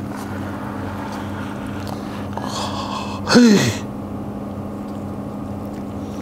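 A steady low hum runs throughout. About three and a half seconds in, a man lets out a short exclamation that falls in pitch.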